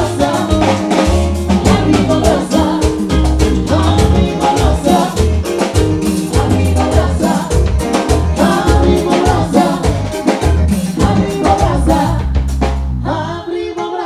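Live band playing at full volume: drum kit, bass and keyboards with singing over a steady beat. The band stops suddenly about a second before the end.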